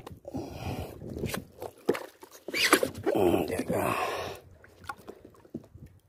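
Small waves slapping and splashing against the side of a small boat, with wind on the microphone; a louder wash of water from about two and a half seconds in lasts a couple of seconds.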